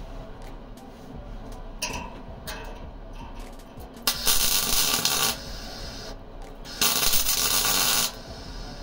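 Electric arc welding on a steel sauna-stove body: two crackling, hissing runs of just over a second each, the first about four seconds in and the second near the end.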